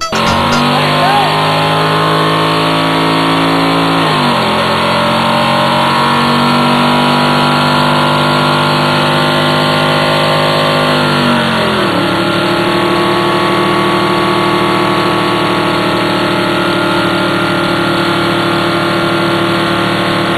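Ford pickup's engine held at high revs during a burnout on 44-inch Boggers mud tires. Its pitch drops sharply twice, about four seconds in and again around twelve seconds in, then holds steady.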